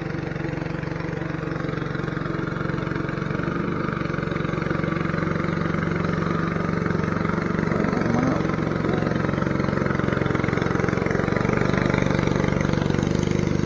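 An engine running steadily at an even pitch, getting slightly louder near the end.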